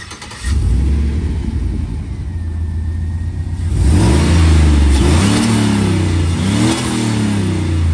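Turbocharged Chevrolet Silverado pickup engine starting up about half a second in and idling, then revved twice from about four seconds in, the pitch rising and falling with each rev.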